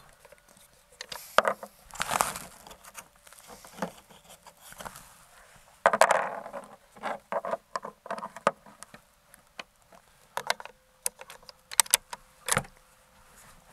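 Handling noise at a shooting bench: a run of sharp clicks, knocks and rattling scrapes, with a short rushing burst about six seconds in that dies away quickly.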